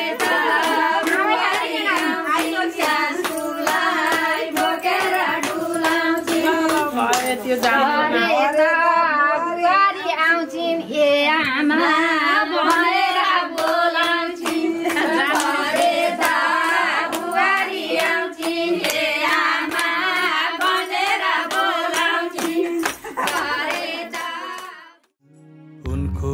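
A song: singing with a wavering melody over a steady held drone, with a sharp, regular clapping beat. It stops abruptly about a second before the end.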